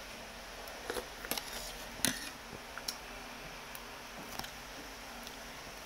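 Close-up eating sounds of noodles being slurped and chewed: a handful of short, wet mouth clicks and smacks, the loudest about two seconds in.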